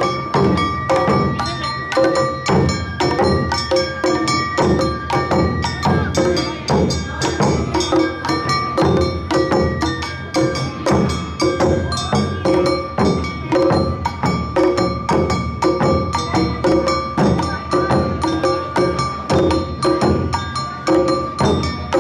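Awa Odori festival music played live by a narimono band: drums and a clanging hand gong struck in a steady, quick beat under a held high flute tone.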